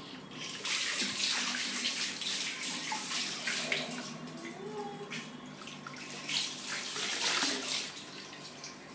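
Tap water pouring into a full bucket, with uneven splashing as hands slap and scoop the water, busiest over the first three seconds and again about six to seven seconds in. A baby's short vocal sounds come in around the middle.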